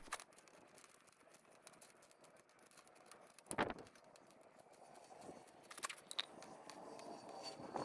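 Faint clinks of large steel bolts being set down upright on a concrete floor by hand, with one louder knock about three and a half seconds in and a few more clicks around six seconds in.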